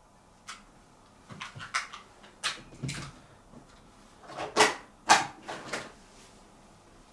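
Ouija board planchette sliding and knocking over the board in a run of short scrapes, the two loudest a little past the middle.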